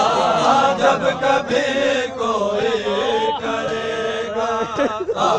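Men's voices chanting a Shia noha together in long, wavering sung phrases.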